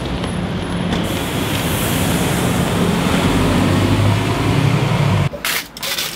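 Street traffic with the low, steady drone of a city bus engine running close by. It cuts off about five seconds in, giving way to a few light clicks of metal tongs against stainless steel food trays.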